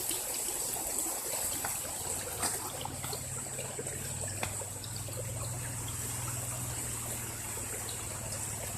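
Creek water trickling and flowing steadily, with a few light clicks. A steady low hum joins in about three seconds in.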